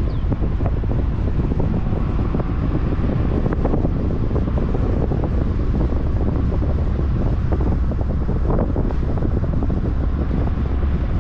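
Steady wind rumble on the microphone over the road and engine noise of a vehicle driving along a paved road.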